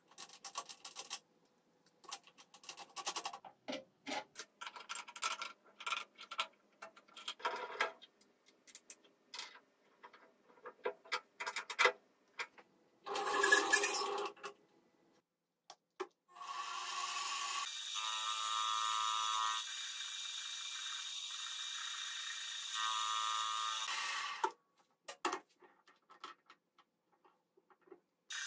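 Metal tooling clinking and clicking as a tool holder is fitted into a Fabtec benchtop milling machine's spindle, then a loud burst of about a second with a shrill high tone near the middle. After that the mill's motor runs steadily for about eight seconds, its pitch shifting twice, and stops a few seconds before the end.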